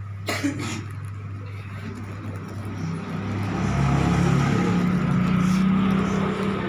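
A motor vehicle engine running with a low hum that grows louder about three and a half seconds in and stays loud.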